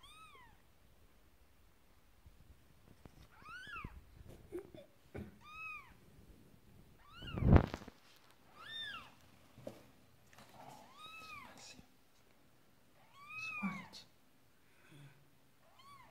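Newborn kitten mewing: short, high-pitched cries repeated every second or two. A louder bump comes about halfway through.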